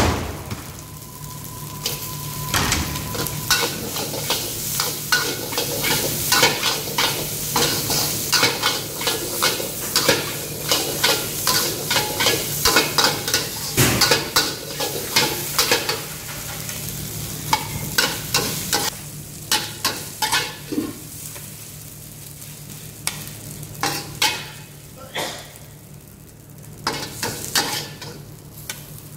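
A long-handled steel spatula scraping and clanking against a steel wok in quick strokes as fried rice sizzles. A steady low hum runs underneath. The strokes come less often in the last third.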